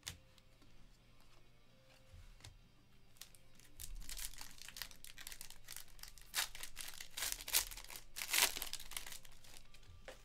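Plastic wrapper of a Chronicles Draft Picks Basketball trading-card pack being torn open and crinkled by hand, in a run of crackles from about three seconds in, loudest near the end.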